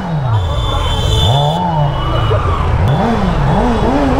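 Kawasaki Z900's inline-four on its stock exhaust revved in throttle blips, the pitch rising and falling: one slower rev early, then quicker blips about twice a second in the second half.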